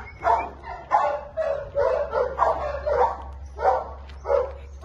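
A dog barking repeatedly, about one bark every half second.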